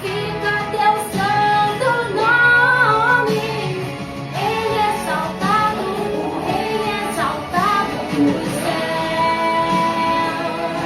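A Portuguese-language Christian worship song playing: a sung melody over instrumental accompaniment, with long held notes near the end.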